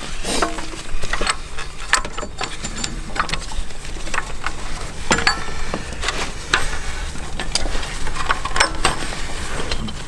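Irregular clicks, clinks and light knocks of hand tools and metal parts being handled during timing-belt work on an engine, over a low steady hum.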